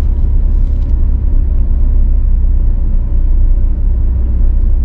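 Wind buffeting the microphone of a camera moving along with a cyclist, a loud steady low rumble with a hiss above it.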